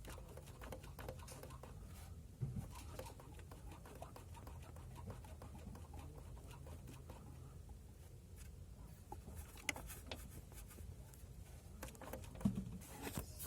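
Two dull low knocks about ten seconds apart from a VW Jetta Mk6's worn gearbox mount, over a low steady rumble and small scattered clicks. The mount has given out and needs replacing.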